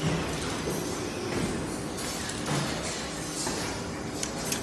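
Steady factory background hum with light metal clicks and clinks as tooling parts are handled on a spring-forming machine. There is a short run of sharp clicks near the end.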